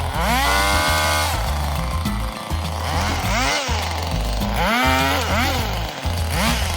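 Stihl two-stroke saw engine revving up and dropping back several times as it cuts, the biggest rise near the start and others about halfway and near the end. Background music with a steady bass line plays over it.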